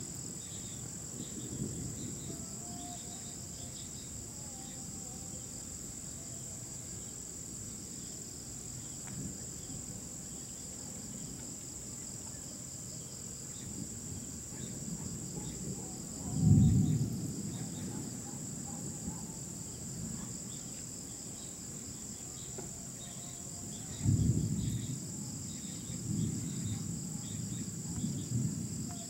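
Crickets chirping steadily in a high band, with thunder rumbling low a little past halfway (the loudest sound) and again twice toward the end.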